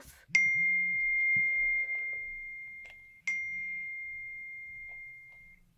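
A high, bell-like tone struck twice, about three seconds apart, each one ringing on and slowly fading away.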